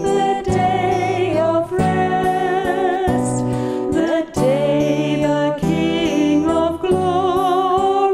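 Music: a slow, gentle song, a voice holding long notes with vibrato over instrumental accompaniment.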